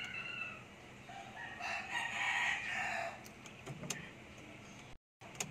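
A rooster crowing once, a drawn-out call of about a second and a half starting near the middle, followed by a few faint clicks.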